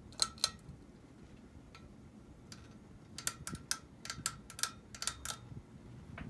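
Hunter Low Profile II ceiling fan ticking: sharp light clicks with a faint ring, two near the start and then a run of about four a second through the middle, over a low steady hum.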